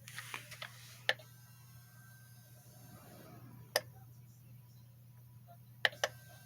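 Sunbeam SFH 442 fan-forced space heater's fan spinning down after switch-off, a faint steady hum, with several sharp clicks, two of them close together near the end.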